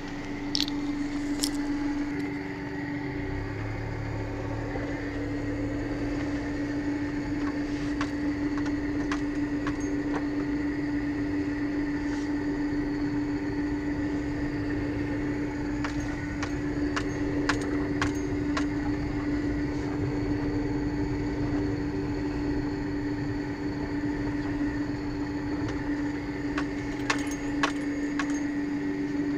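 Car engine running steadily at low speed, heard from inside the cabin, with a steady hum and scattered light clicks.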